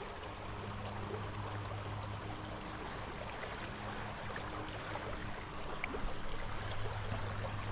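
Creek water flowing steadily, with a low steady hum underneath.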